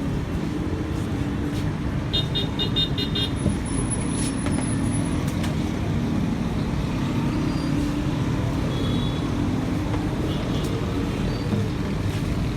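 Busy street traffic noise, a steady rumble of passing vehicles, with a quick series of about six high beeps about two seconds in.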